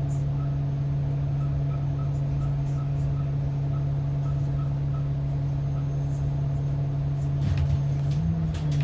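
Transit bus running on the road, its engine and drivetrain giving a steady low drone, with faint light ticks over the first few seconds and a few sharp clicks or knocks near the end.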